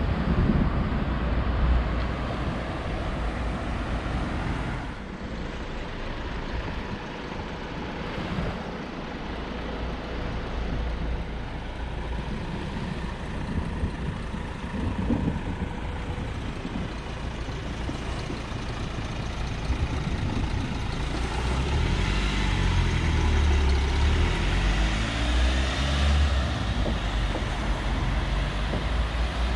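Road traffic passing along a street: cars driving by, with a low engine rumble that swells for several seconds about two-thirds of the way through as a van passes close.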